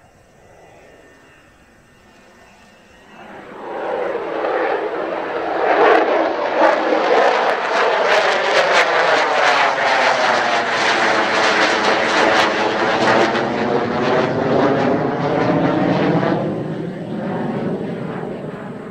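Mitsubishi F-2 fighter's single F110 turbofan jet engine passing low. The jet noise swells about three seconds in and stays loud and crackling through the middle. It then fades as the jet moves away.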